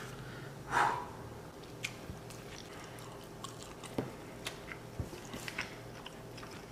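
A man biting into a hamburger and chewing it: a louder bite just before a second in, then quiet chewing with small wet clicks scattered through.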